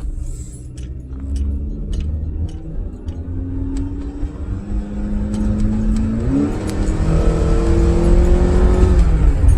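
Honda Accord engine accelerating hard under load, its pitch climbing steadily with a quick step up about six seconds in, then dropping back near the end. It runs cleanly with no audible misfire at this point, over a heavy low road rumble.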